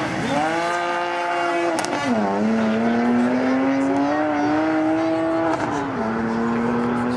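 BMW 3 Series coupé rally car's engine at high revs under hard acceleration, its pitch climbing between two upshifts where the pitch drops sharply, about two seconds in and again near the end.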